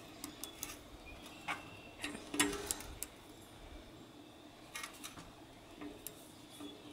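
Faint, irregular metallic clicks and ticks from a Pedro's torque wrench and its T25 Torx bit working the disc brake rotor bolts, the loudest about two and a half seconds in.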